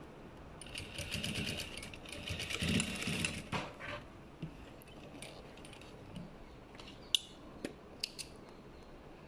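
Sewing machine stitching a seam in two quick runs of rapid needle strokes, about a second in. A few sharp clicks follow, and near the end three snips of thread snips cutting the thread.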